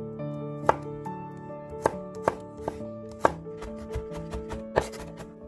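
Broad-bladed kitchen knife chopping peeled garlic cloves into coarse pieces on a wooden cutting board: sharp, irregular strikes, roughly one every half-second to second. Soft background music with held notes plays underneath.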